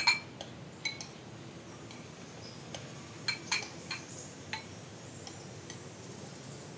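Metal spoons clinking against ceramic bowls as two people eat: a scatter of sharp, briefly ringing clinks, the loudest at the start and a cluster between about three and five seconds in, over a steady low background hiss.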